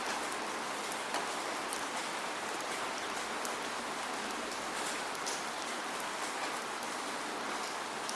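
Steady rain falling, without thunder: an even hiss with many single drops ticking sharply on a surface.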